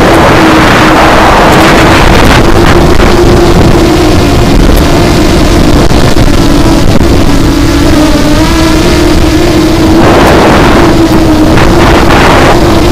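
FPV quadcopter's brushless motors and propellers whining through its onboard action camera's mic, the pitch shifting up and down as the throttle changes. Rushes of wind noise on the mic swell near the start, around two seconds in and again around ten seconds in.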